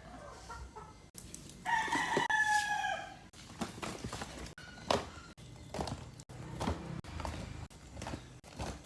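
A rooster crows once, a call of about a second and a half with its pitch falling slightly at the end. Around it come scattered soft rustles and clicks of paper squishies being handled.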